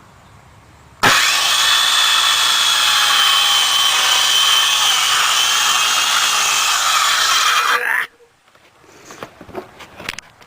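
Power saw cutting through wood for about seven seconds, a steady motor whine over the noise of the cut. It starts suddenly and stops abruptly, followed by a few light knocks.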